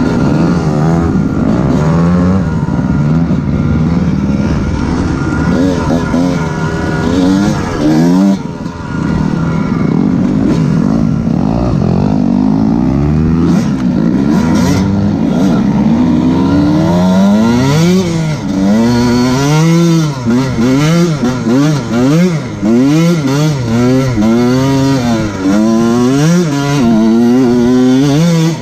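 Dirt bike engine being ridden hard, its pitch rising and falling with throttle and gear changes. The revs swing up and down quickly and repeatedly in the second half.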